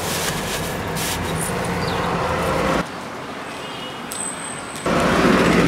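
Steady low rumble of a car's cabin. About three seconds in it cuts abruptly to quieter outdoor ambience with a brief thin high tone, then the louder cabin rumble returns near the end.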